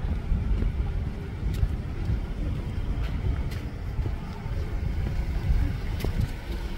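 Low, fluctuating rumble of outdoor street ambience, with a few faint clicks scattered through.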